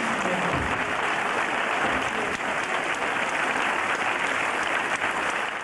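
Audience applauding, a dense steady patter of clapping hands.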